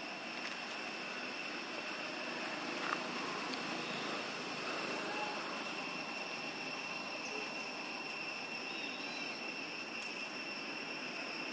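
Steady outdoor background: a constant high-pitched buzzing tone over an even hiss, with one short click about three seconds in.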